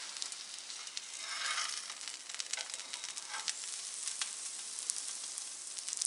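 Egg paratha frying in oil on an iron tawa: a steady sizzle dotted with small pops and crackles.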